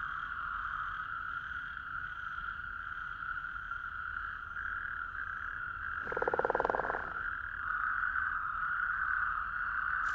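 Frogs calling in a wetland: a steady high chorus throughout, with one louder, close croak about six seconds in that lasts about a second.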